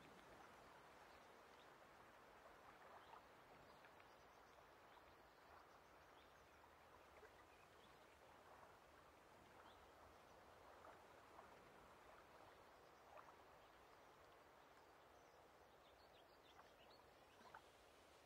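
Faint lake ambience recording: a soft, even wash of outdoor sound with scattered small ticks.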